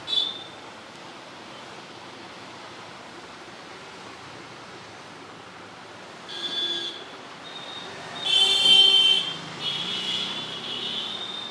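Steady hum of road traffic, with a short sharp sound right at the start and several loud, high-pitched tones from about six seconds in.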